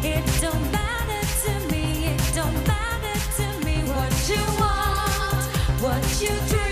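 Pop song with a woman's sung melody over a steady beat and bass.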